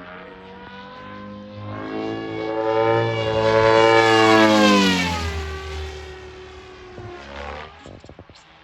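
Custom Comet EVO electric RC helicopter with an Xnova motor making a high-speed pass: the rotor and motor whine swells, drops sharply in pitch as it goes by about five seconds in, and fades away.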